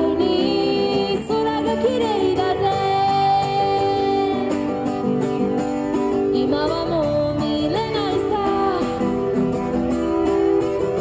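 A woman singing a slow song to acoustic guitar accompaniment, her voice gliding and bending between notes over steady guitar chords.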